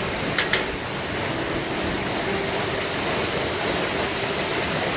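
Iruppu Falls' waterfall running with a steady, even rush of water. Two brief, sharp high sounds come about half a second in.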